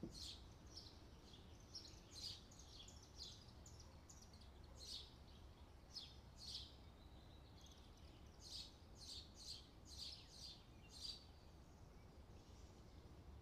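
Faint, repeated short bird chirps in irregular runs, thickest near the end, over a low steady hum.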